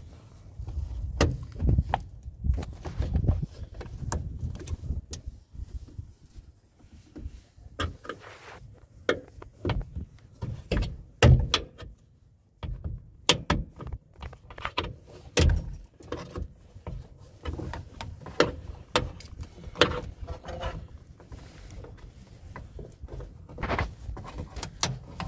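Metal hand tools clicking and knocking inside a Honda Odyssey's sliding door as a wrench is worked on the latch actuator's screws: irregular sharp clicks and knocks with handling rumble, pausing briefly about halfway through.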